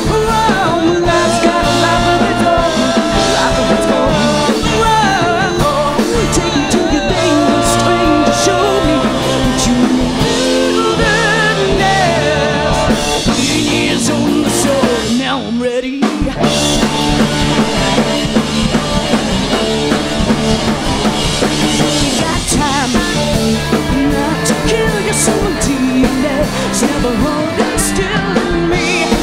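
Glam-punk rock band playing live: drum kit, bass and electric guitars. There is a short break about halfway through, and then the full band comes back in.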